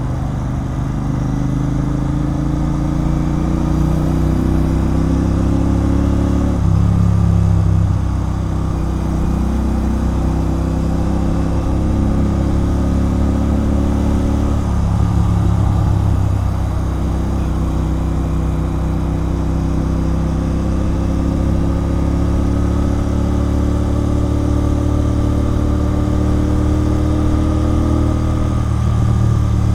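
Royal Enfield Continental GT 650's parallel-twin engine running through an aftermarket Red Rooster Performance exhaust under way, its note climbing steadily in pitch under throttle. The pitch falls off sharply about 7 seconds in, again about 15 seconds in and near the end, then builds again.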